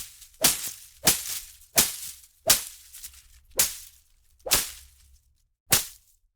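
Leafy foliage being whipped and slashed: about seven sharp swishing hits at an uneven pace, each trailing off in a short rustle of leaves.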